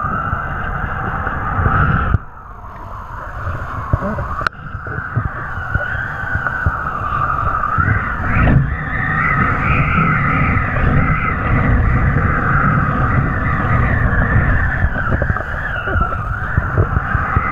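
Wind buffeting the microphone of a pole-mounted action camera while kiteboarding at speed, a steady low rumble with a wavering whistle over it. It drops away about two seconds in and returns a couple of seconds later.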